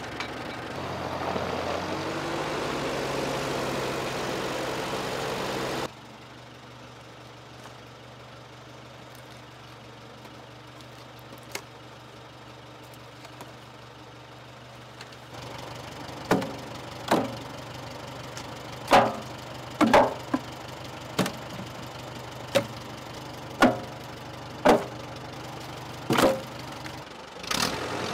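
Allis-Chalmers tractor engine running, dropping abruptly to a quieter steady idle about a fifth of the way in. From about halfway, split firewood pieces are thrown down one at a time: about ten sharp wooden knocks, roughly a second apart, over the idling engine.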